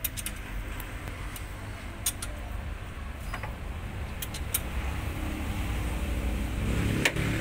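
Scattered sharp metal clicks from a socket and ratchet slowly turning an old steel head bolt into a damaged head-bolt hole in the engine block, cleaning up the threads. A steady low rumble runs underneath and grows louder toward the end.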